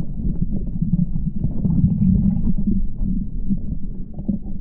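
Muffled underwater sound heard through a camera held below the surface: a dull low rumble with scattered gurgles and knocks of moving water and bubbles, over a steady low hum.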